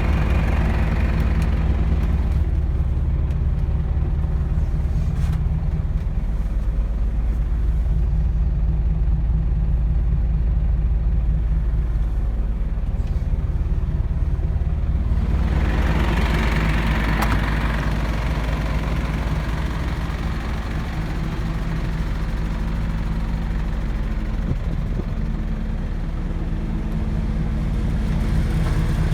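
Mercedes-Benz Atego truck's diesel engine running steadily at idle, with a band of higher-pitched noise coming in about halfway through and staying.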